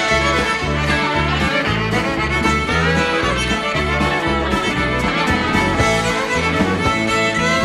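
Rock band playing live in an instrumental passage: a bowed violin takes the lead over bass guitar and drums.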